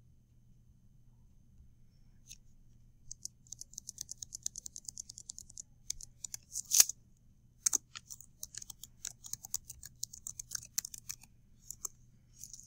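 Typing on a computer keyboard: after a few quiet seconds, quick runs of keystrokes, with one louder click about seven seconds in.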